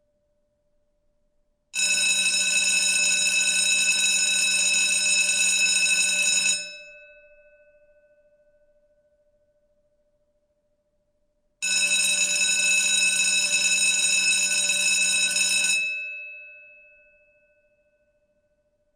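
School bell ringing twice, first for about five seconds, then after a pause of about five seconds for about four seconds. Each ring holds steady, stops sharply and leaves the bell's tone fading out.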